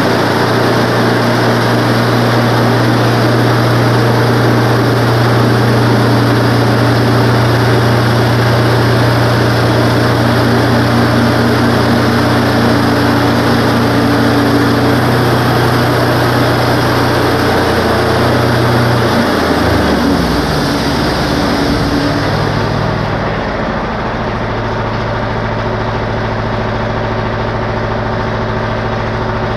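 Wood-Mizer LT15 portable band sawmill running at full throttle with its band blade spinning, steady, while the saw head travels along the log. About two-thirds of the way in the gas engine throttles down, the blade's high hiss dies away, and the engine settles to a steady idle.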